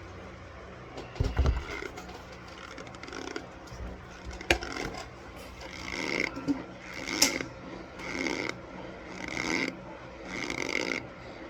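Chewing a mouthful of raw cornstarch close to the microphone, with a thump about a second in and a sharp click midway, then regular chews about once a second through the second half.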